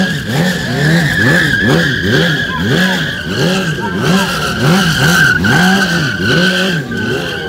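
BMW sport bike doing a burnout drift: the engine revs up and drops back in regular pulses a little under twice a second, while the spinning rear tyre squeals steadily on the asphalt.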